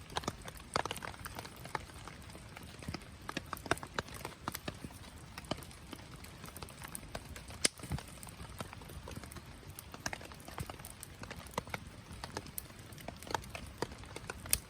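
Wood fire crackling in a Picogrill fire pit: irregular sharp pops and snaps, several a second, over a low steady hiss.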